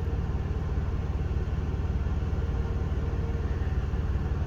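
Steady low rumble with a fast, even pulse and no speech.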